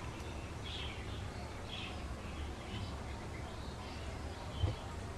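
Eating by hand: rice and curry being squeezed with the fingers and chewed, giving soft, repeated smacking noises every half second to a second. A steady low hum runs underneath, and there is a soft thump near the end.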